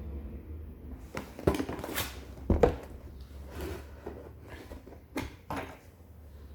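Cardboard laptop box being handled and worked open by hand: a string of knocks and scrapes, the loudest about two and a half seconds in and two more a little after five seconds.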